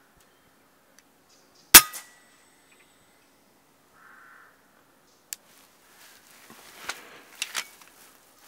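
Air rifle firing a single sharp shot about two seconds in. A fainter click and some handling rustles follow a few seconds later.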